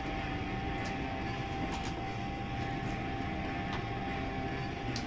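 Steady background hum and hiss, with a few faint light clicks.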